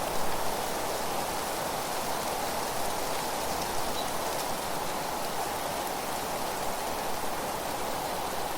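Steady rushing of wind through rustling leaves, an even, unbroken natural noise.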